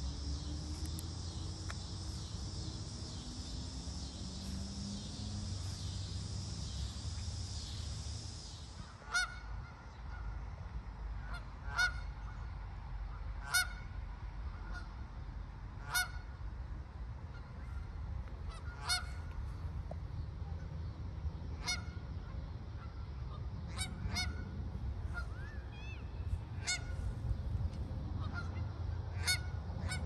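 Geese honking: about ten single short calls spaced two to three seconds apart, starting about nine seconds in, over a low rumble. Before the honking, a steady high insect buzz runs and then cuts off abruptly.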